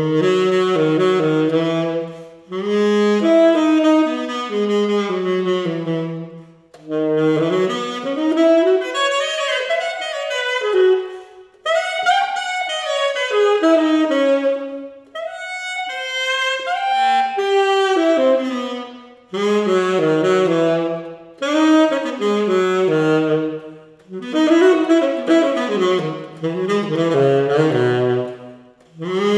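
Tenor saxophone playing an unaccompanied solo: flowing melodic phrases of a few seconds each, with quick runs up and down and short pauses between phrases.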